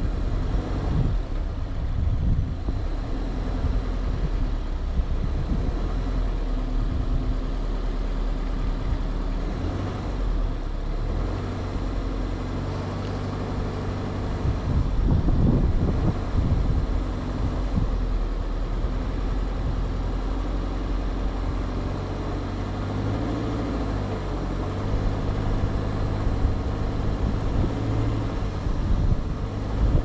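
2020 Subaru Outback driving over a rutted dirt trail: the engine runs steadily under a low rumble from the tyres and suspension on the rough ground, with a louder stretch of knocks and jolts about halfway through.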